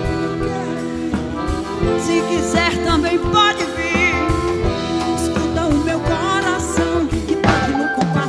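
Live band music: a woman singing with vibrato over accordion and drum kit.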